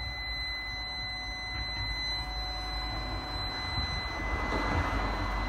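A steady high-pitched whine, which the owner cannot place, over the rumble of passing traffic on a busy road. The traffic noise swells near the end.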